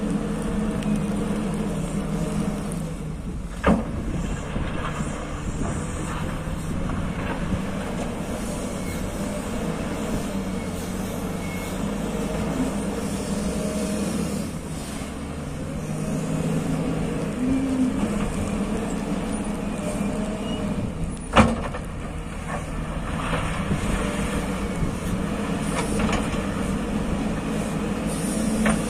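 Wheel loader's diesel engine running steadily under load as it pushes a bucket of dirt down an earth slope. Two sharp knocks stand out, one about four seconds in and a louder one some seventeen seconds later.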